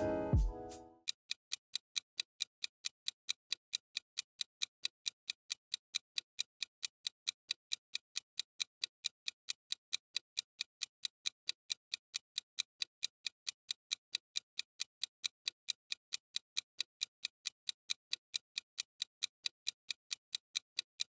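Clock-like ticking of a countdown-timer sound effect: sharp, even ticks at about four a second, all the same strength.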